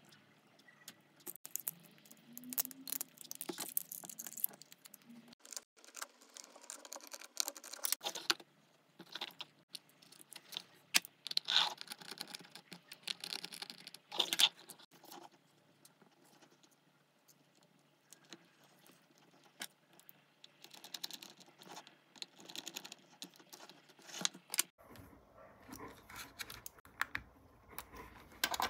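Irregular small clicks, taps and rustles of hands handling lithium-ion cells, tape and a screwdriver while fitting the cells into a powerbank's screw-terminal strips, with a quiet spell a little past the middle.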